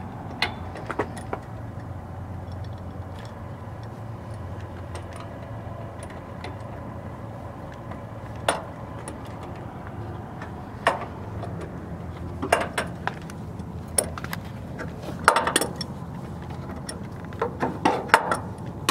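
Scattered metallic clinks and taps of a crescent wrench on the airline nut and fittings of a semi sleeper's air spring, coming more often and louder from about halfway through, over a steady low rumble.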